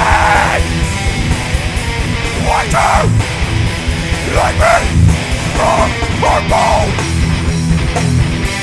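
Hard rock band playing loudly, with electric guitar over a driving rhythm.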